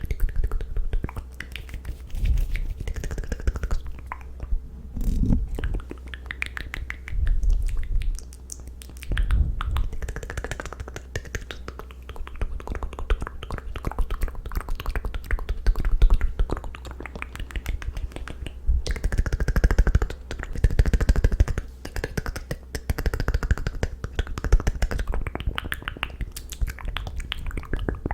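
Close-miked ASMR mouth sounds: wet clicking and smacking of the tongue and lips, coming in clusters of a second or two with brief pauses between them.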